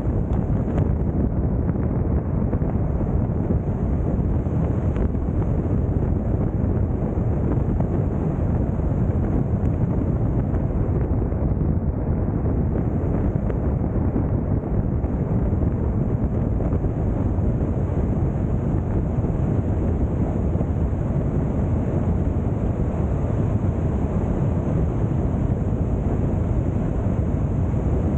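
Car driving at freeway speed: steady tyre and wind noise, a low rumble that does not change.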